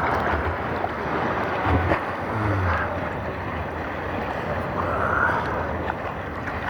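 Seawater sloshing and splashing close to the microphone: a steady rushing noise that swells briefly a couple of times, with wind on the microphone.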